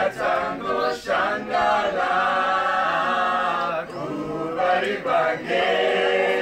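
A mixed group of men and women singing together unaccompanied, as a choir, with a long held chord in the middle.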